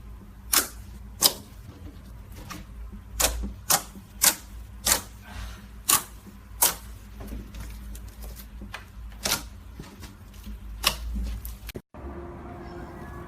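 Slime being poked and pressed, making sharp popping clicks at irregular intervals, about ten in all. The sound cuts off abruptly near the end.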